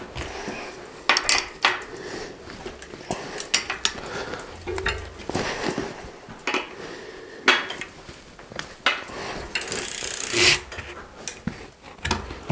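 Irregular metallic clinks, knocks and rattles of a mountain bike's rear wheel being worked into the frame, with its axle, chain and derailleur clattering as the wheel is fitted into the dropouts. There is a denser stretch of rattling about ten seconds in.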